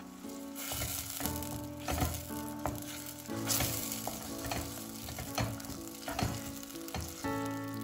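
Tomato paste and chili pepper paste sizzling as they fry in hot butter and oil in a stainless steel pot. A wooden spoon stirs and scrapes through it, with short scraping knocks against the pot every half second or so.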